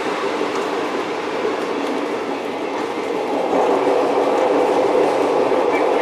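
'Tin Hare' rail motor running along the track, a steady rumble of wheels on rail. About three and a half seconds in it grows louder and deeper as the rail motor rolls onto the bridge.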